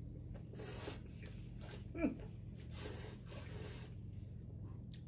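Two people sipping red wine and slurping air through it, heard as a few short hissing slurps, with a brief voiced "mm" about two seconds in.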